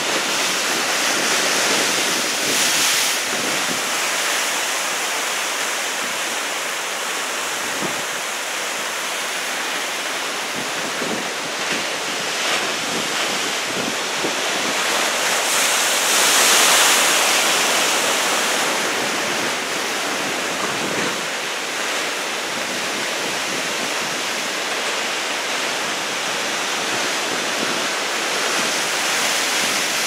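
Heavy ocean surf from a typhoon swell, breaking and rushing, with wind buffeting the microphone. The rush swells to its loudest about halfway through.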